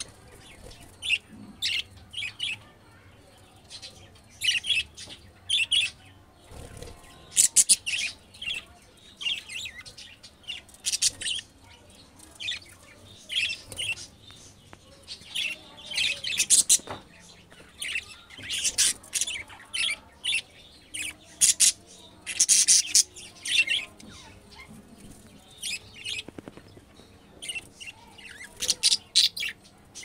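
Budgerigars chirping in short, irregular bursts of high chirps, one after another.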